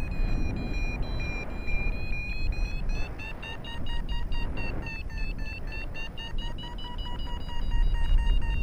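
Paragliding variometer sounding: one held tone that turns into rapid beeping about three seconds in, its pitch edging up, the sign of climbing air. Wind rumbles on the microphone underneath.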